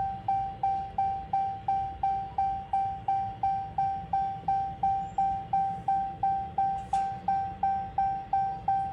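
Electronic warning chime dinging over and over at about three a second, each ding a single clear tone with a quick fade, over a low steady hum.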